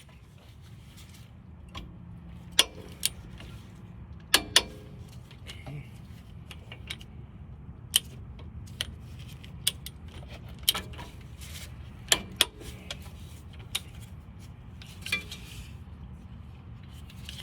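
Hand tools and metal parts being handled during brake work, giving scattered sharp metallic clicks and clinks at irregular intervals over a steady low hum.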